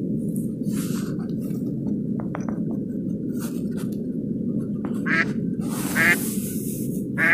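A duck quacking in three short bursts in the second half, over a steady low rushing noise on the microphone.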